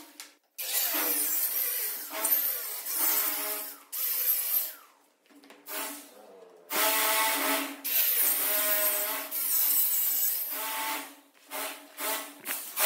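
Handheld electric circular saw cutting into plywood along a straightedge, in a series of short runs of about a second each, its motor whine starting and stopping between runs.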